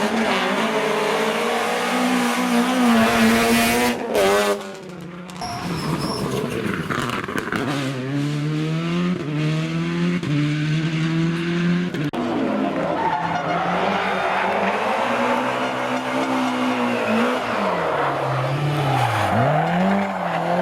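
Historic rally car engines revving hard, the pitch climbing and dropping again and again through gear changes and lifts, with tyre noise. There is a loud surge about four seconds in, a brief dip, then the engine note builds again, and the pitch swoops down sharply near the end.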